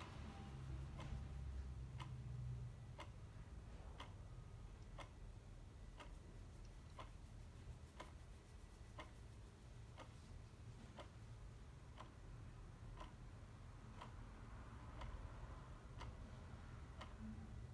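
Clock ticking steadily, about one faint tick a second, over a low steady hum.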